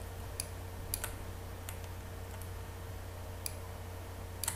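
Computer mouse clicking as edge loops are selected one after another: about eight sharp, irregularly spaced clicks, two of them in quick succession near the end, over a steady low electrical hum.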